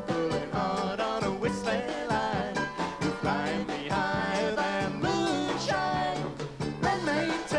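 Live folk band music, a man singing lead over the band with a steady beat.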